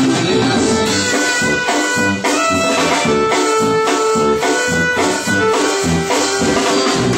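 Live band music: brass instruments play held notes over a bass drum and cymbal keeping a steady beat.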